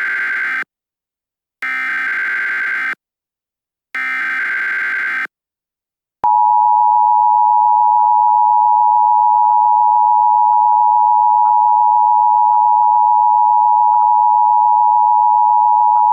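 Emergency Alert System alert tones. First comes the end of one burst and then two more bursts of SAME header data, harsh buzzy digital screeches about a second and a half each with short gaps between them. About six seconds in, the two-tone EAS attention signal starts, a steady loud tone held for about ten seconds.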